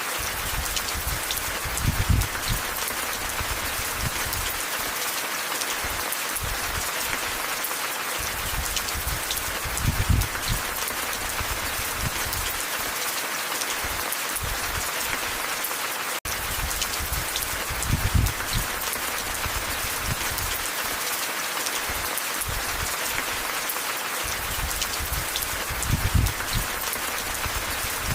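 Steady heavy rain: a dense, even hiss of drops with scattered small ticks. A low swell rises and fades about every eight seconds.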